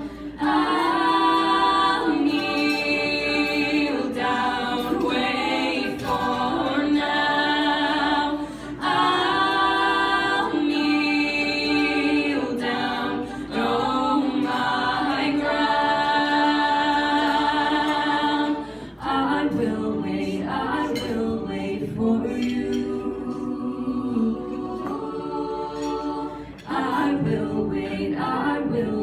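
Female a cappella group singing into microphones in close harmony, several voices holding chords over a steady low sung line. About two-thirds of the way through the sound dips briefly and the texture thins.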